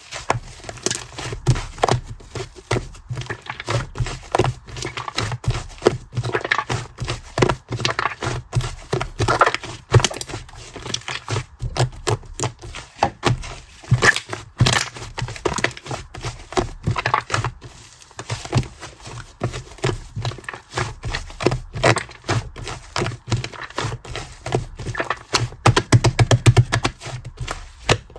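Fluffy slime squeezed and stretched by hand, giving a dense, continuous run of sticky clicks and crackles.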